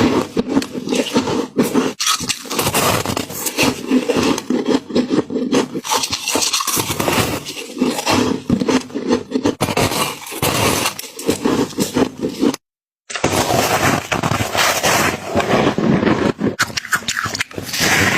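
Freezer frost being crunched and chewed close to the microphone: a dense, continuous run of crisp crackles. It cuts out for about half a second a little past the middle, then resumes.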